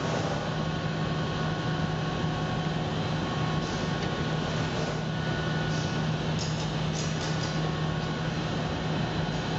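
Steady low hum with a rushing noise from running background equipment, and a few faint light clicks in the middle stretch.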